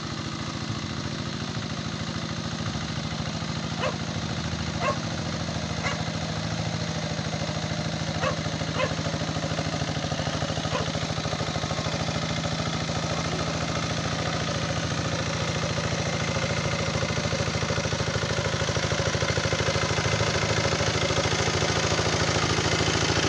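Hand tractor's single-cylinder diesel engine running steadily under load as its cage wheels plow a flooded rice paddy, growing louder as it comes closer. A few sharp clicks come between about four and nine seconds in.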